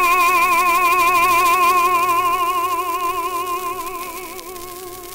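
A baritone holds one long sung note with a wide, even vibrato over orchestral accompaniment, played back from an electrically recorded 78 rpm gramophone record. The note fades away about four seconds in, leaving the orchestra playing softly.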